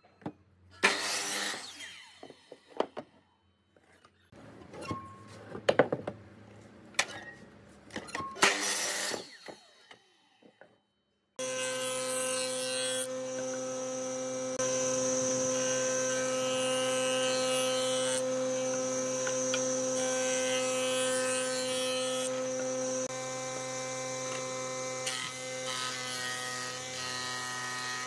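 Electric motor of a green jointer-thicknesser planer running at a steady hum, switching in abruptly about eleven seconds in and shifting in level a few times after. Before that, short irregular knocks and bursts as the wood is handled and cut.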